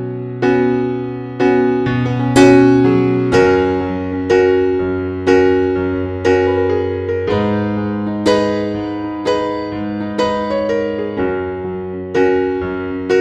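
Background music: electric piano playing slow, sustained chords, a new chord struck about once a second and left to fade.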